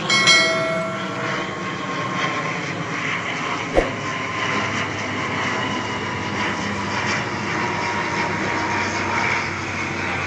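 Airliner flying overhead: a steady engine drone. A short electronic chime rings in the first second, and there is a single sharp click about four seconds in.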